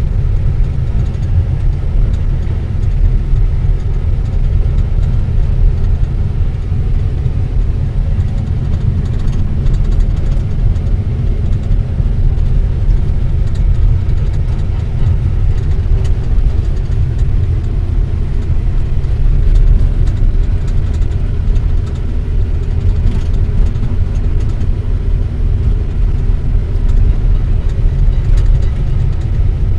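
Excavator's diesel engine running steadily, heard from inside the operator's cab while the machine travels on its tracks.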